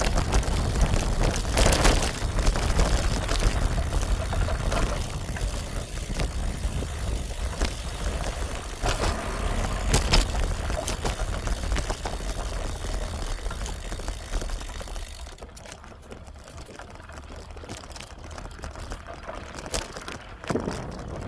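Wind rumbling on the microphone with road and tyre noise from a moving bicycle, a few short clicks along the way; it eases off in the last few seconds.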